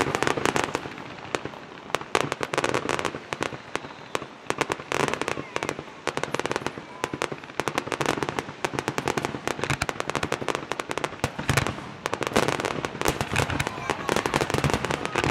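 Fireworks display: a rapid, dense barrage of shell bursts and crackling reports, many sharp pops a second with louder clusters among them.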